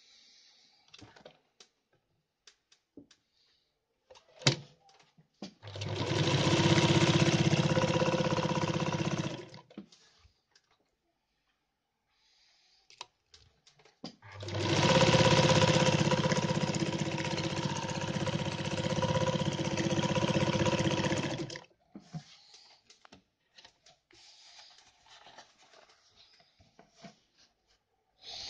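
Kehler Altenberg sewing machine stitching heavy cotton twill with thick thread and an industrial needle. It runs steadily in two bursts, one of about four seconds and one of about seven. Small clicks and fabric handling sound between the runs.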